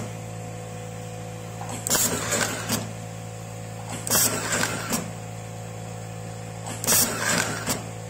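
Automatic nylon cable-tie strapping machine cycling three times over a steady hum. Each cycle is about a second of whirring, hiss and clicks as it wraps, tightens and cuts a tie around a wire harness bundle.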